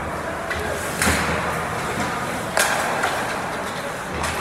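Ice hockey play: skates scraping on the ice and two sharp knocks of hockey equipment, about a second in and again past the halfway point, over faint crowd chatter in the rink.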